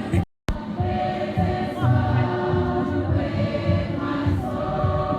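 Choir singing, several voices holding notes together, broken by a brief silent gap about a third of a second in.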